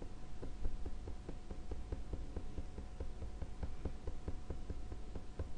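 A low steady hum with faint, quick, regular ticking, about five ticks a second.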